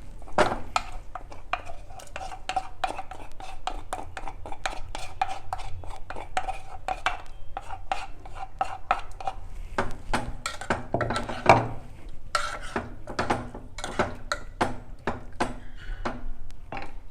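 A spoon stirring and knocking in a metal cooking pot, with many irregular clinks and taps.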